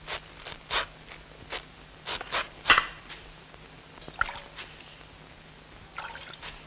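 Salt being scooped by hand from a plastic jar and dropped into a pot of water on a gas stove: a scatter of light clicks and taps, the sharpest a little before halfway.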